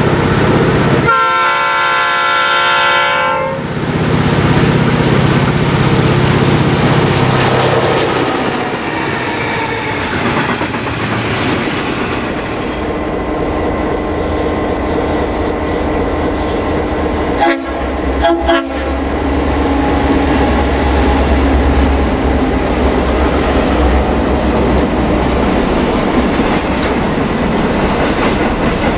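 A diesel freight locomotive's multi-note air horn sounds once for about two seconds. It is followed by the continuous rumble of diesel locomotives and a long container freight train rolling past close by, with the clickety-clack of wagon wheels. About two-thirds of the way through there are a couple of sharp knocks, and a deep engine drone comes in.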